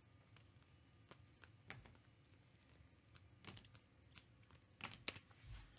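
Near silence with faint, scattered clicks and taps, a few slightly louder ones after the middle.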